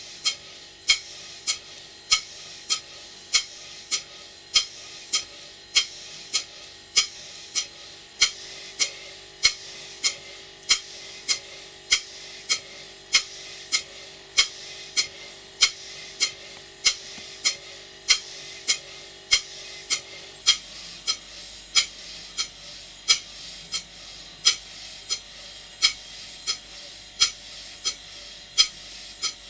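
Large horizontal single-cylinder model steam engine running steadily, with a sharp click in an even beat about once a second and fainter ticks between. A faint steady hum underneath stops about two-thirds of the way through.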